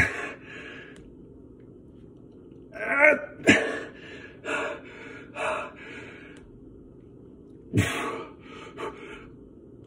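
A man panting in sharp, forceful gasps and strained, grunting exhalations as he pushes through push-ups near muscle failure. There are about seven irregular bursts, with a lull in the middle.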